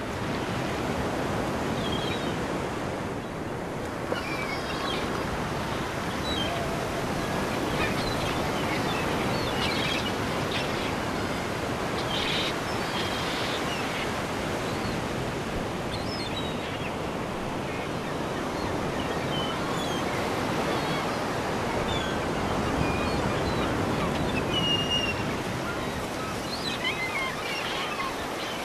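Ocean surf washing steadily, with short high bird calls scattered throughout.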